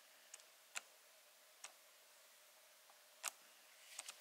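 Near silence broken by about five faint, sharp clicks from hands gripping and turning a pair of leather Air Jordan 1 high-top sneakers. The sharpest click comes about three seconds in.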